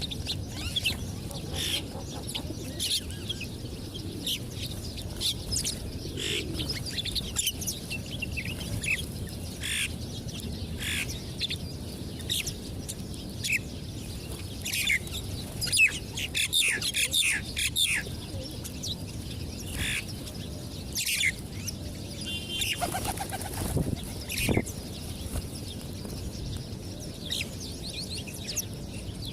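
Small birds chirping, with short high calls throughout and a dense flurry of chirps around the middle. A single lower call comes a little past two-thirds of the way in.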